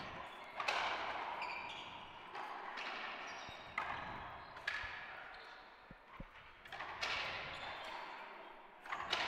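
Racquetball rally: the ball smacks off racquets and the court walls about six times, each hit ringing out with a long echo in the enclosed court.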